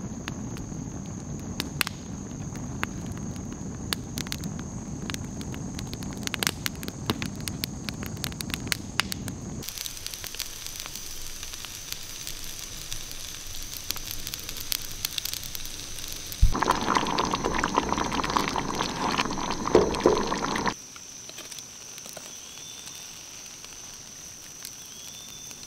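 Campfire crackling and popping over a steady high insect trill for about the first ten seconds. After an abrupt change the insect trill goes on alone, broken by a louder stretch of indistinct noise lasting a few seconds, and near the end by a couple of faint short chirps.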